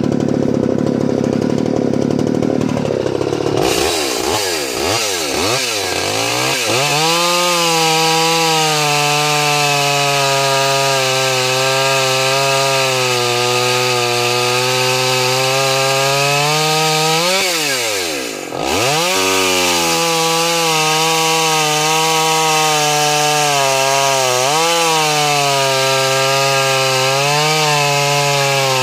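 Solo 605 two-stroke chainsaw running slowly at first, then revved up about four seconds in and cutting through a thick log at high revs. Past halfway the engine note falls sharply and comes straight back up, and it dips slightly a few more times near the end as the load changes.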